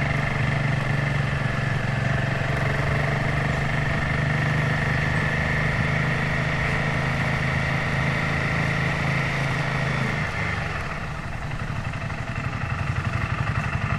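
Royal Enfield Himalayan 450's single-cylinder engine running steadily under way. About ten seconds in, the throttle closes and the engine falls to a lower, pulsing beat that builds again near the end.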